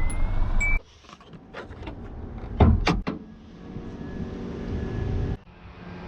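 Car sounds in short edited cuts: a loud rumble with a rising whistle that cuts off under a second in, then clicks and a loud double knock, then a car engine running with a steady hum until an abrupt cut.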